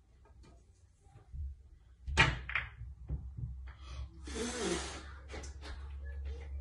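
Pool balls on a pool table: a sharp click about two seconds in as a shot is struck, a second click just after, and about two seconds later a short noisy rush lasting about half a second.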